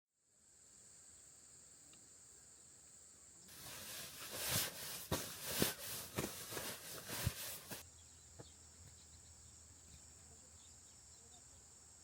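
Insects chirring steadily on a high pitch. From about three and a half seconds in, a few seconds of loud crackling with sharp pops cuts in and stops suddenly.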